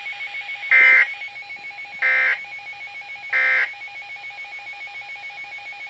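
Three short bursts of SAME digital data tone, the end-of-message signal that closes a Canadian weather alert broadcast, about a second and a half apart. A faint pulsing tone runs underneath.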